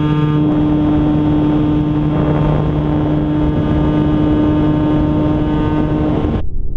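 Onboard sound of an RC plane in flight: the steady pitched hum of its motor and spinning propeller, with wind rushing over the microphone. About six seconds in the hum cuts off suddenly, leaving only a low, gusting wind rumble.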